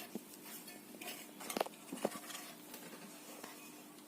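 Light handling of kitchenware while adding chopped ingredients to a mixing bowl: faint rustling and patter with a few short knocks, two sharper ones about a second and a half and two seconds in.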